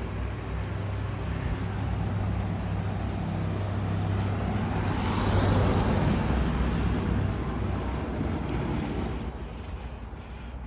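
A motor vehicle driving past on the street, growing louder to its closest point about halfway through and then fading away, over a steady low traffic hum.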